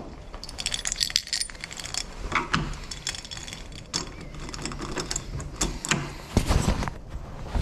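Small metal lock hardware and screws clinking and rattling as they are handled, a run of light metallic clicks, with a heavier knock near the end.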